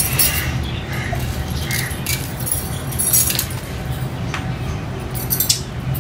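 Glass bangles clinking and jangling in scattered light clicks as the wearer's arms move, over a steady low hum.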